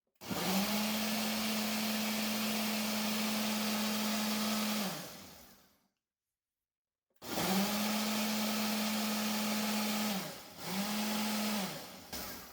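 Blender motor running at a steady pitch, blending chopped fresh loquat leaves with water. It gives one run of about five seconds, a second run of about three seconds and then a short pulse, spinning down after each.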